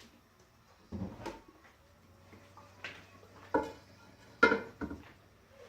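Kitchen utensils and a pan clinking and knocking: about six separate sharp clatters spread over a few seconds.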